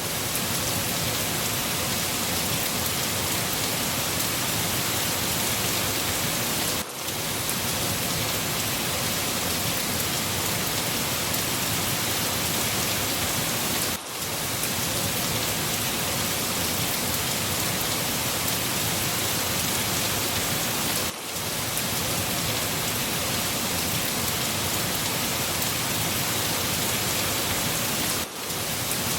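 Steady rain falling and pattering on surfaces, an even hiss, with a brief momentary drop in level about every seven seconds.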